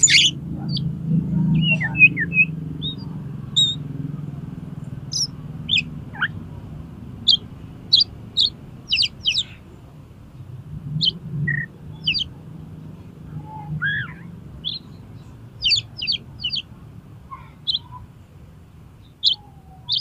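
Oriental magpie-robin singing in the agitated 'konslet' style, a string of short, sharp, high chips and whistled notes at uneven spacing, bunched several to a second at times, over a low steady hum.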